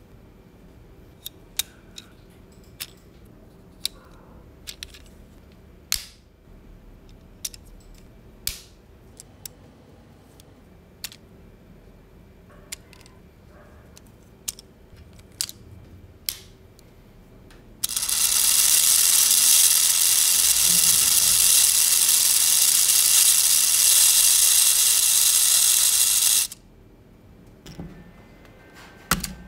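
LEGO Technic bricks, pins and plastic gears clicked and snapped together by hand, in scattered sharp clicks. About eighteen seconds in, the motor-driven train of plastic gears spins up to a loud, steady high whir for about eight seconds, then cuts off suddenly; more part clicks follow near the end.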